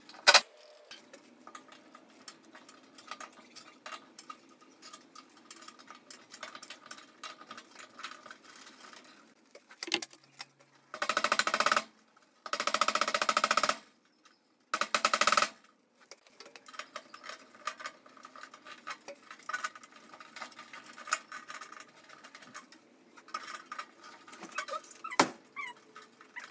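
Hands handling wires and a sheet-metal fluorescent light fixture: light rustling with many small clicks and taps, broken by three loud, harsh bursts of about a second each near the middle.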